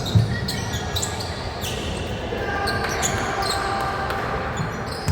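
A basketball bouncing on an indoor court, with its loudest thud just after the start. Around it are short high sneaker squeaks and players' and spectators' voices in a large hall.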